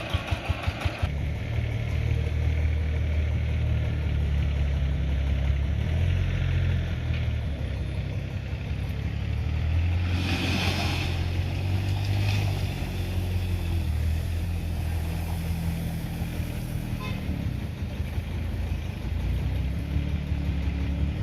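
A three-wheeled farm vehicle's diesel engine knocking about five times a second at idle. About a second in it picks up into a steady low-pitched run. A brief hiss cuts through around the middle.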